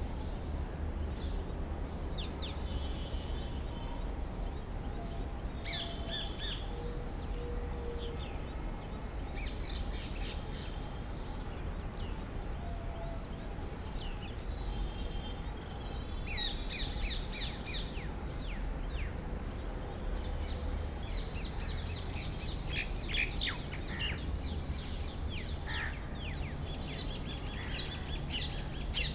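Small birds chirping in scattered clusters of quick high calls, busiest in the second half, over a steady low rumble. A faint low hum joins near the end.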